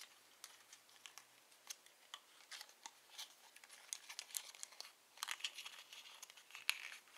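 A miniature cardboard toy box being folded and pressed together by fingers: faint crinkling and scattered light clicks of thin card, with one sharper click near the end as it goes together.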